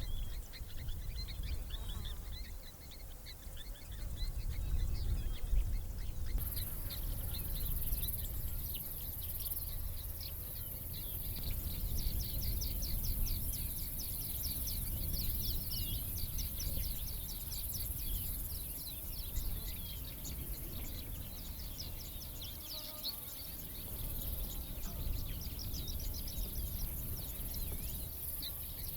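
Savanna ambience: wild birds calling in many quick repeated chirps. About six seconds in, a steady high-pitched insect buzz starts, over a low rumble.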